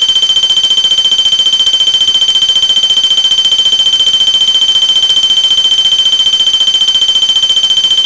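Wheelock MT multitone fire alarm horn/strobe sounding its electronic bell tone: a loud, high-pitched ring pulsing very rapidly and holding steady.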